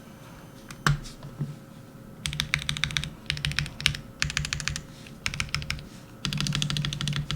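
Typing on a Portico75 mechanical keyboard with Zepsody Bluebonnet linear switches and PBT keycaps, heavy and on the clacky side. A single keystroke about a second in, then short bursts of fast typing, with a denser, louder run near the end.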